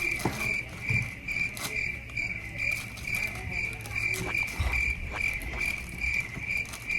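A high-pitched chirp repeating steadily about twice a second, over scattered light clicks and taps.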